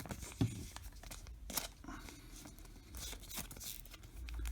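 Trading cards and a foil card-pack wrapper being handled: light crinkling, rustles and small taps.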